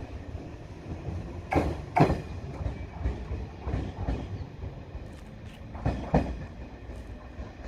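Shinano Railway 115 series electric train pulling away, running with a low rumble while its wheels clack over a rail joint: three pairs of knocks about two seconds apart.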